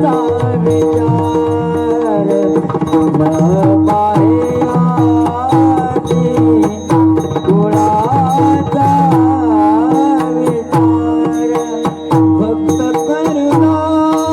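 Marathi devotional abhang music: tabla strokes keep a rhythm, the bass drum's notes gliding downward, under a steady drone and a gliding, wavering melody line.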